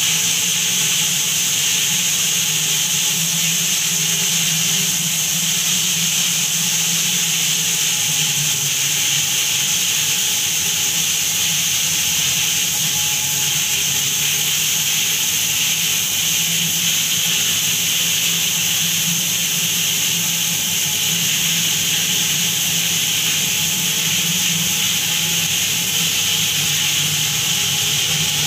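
Water jet from an IPX6 test chamber's nozzle spraying steadily inside the stainless-steel enclosure, a continuous loud hiss, with the steady low hum of the chamber's water pump underneath.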